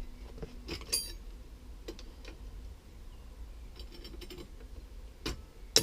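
Scattered light clicks and knocks of small hard objects being handled, with a short high ringing clink about a second in and a sharper knock near the end.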